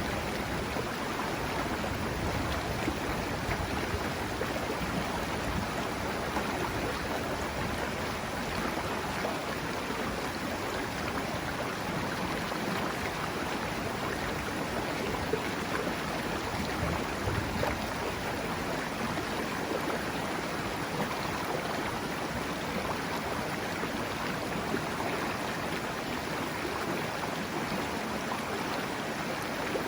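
Water of the Serio river flowing, a steady, even rush.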